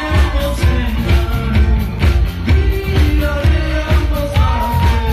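Live pop-rock band playing with a steady driving beat on drums and bass, with a singer's voice over it, heard from among the audience.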